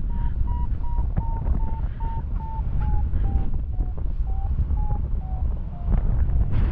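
A paraglider's variometer beeping about three times a second, its pitch slowly falling, the sign of a weakening climb, under heavy wind rush on the microphone. A short rustle sounds near the end.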